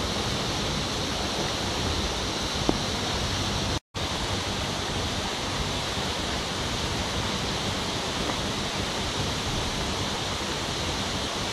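Steady hissing, rushing noise like running water, with a brief dropout about four seconds in.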